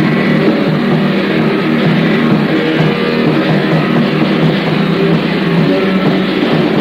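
Early-1980s underground metal demo recording: distorted electric guitars and a drum kit playing without a break, with a tempo adjusted from the original. The sound is dull and thin, with no high treble and little deep bass.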